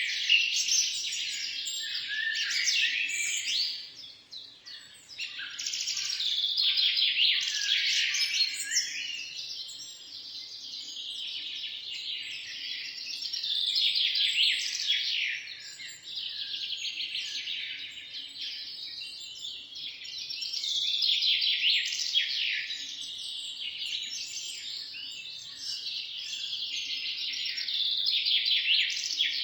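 Many small songbirds chirping and singing together, dense rapid trills and chirps that swell and fade every few seconds.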